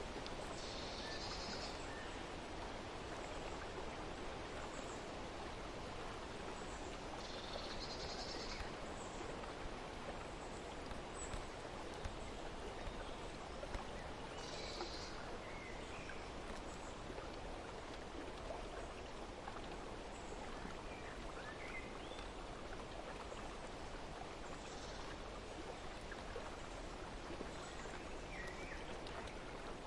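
Steady rush of flowing water with birds chirping now and then, three clearer calls in the first half and a few fainter ones later.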